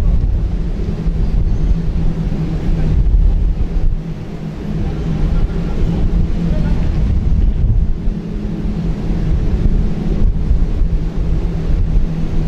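Wind buffeting the camera microphone: a loud, low, blustery rumble that dips briefly a few times.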